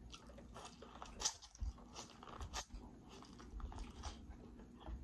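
Biting into and chewing corn on the cob: a series of crunchy bites with chewing in between, the loudest bite a little past a second in.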